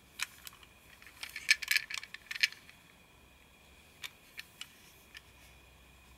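Light plastic clicks and rattles of a Plarail toy Shinkansen car being handled and turned over: a quick cluster of clicks in the first two and a half seconds, then a few single clicks about four to five seconds in.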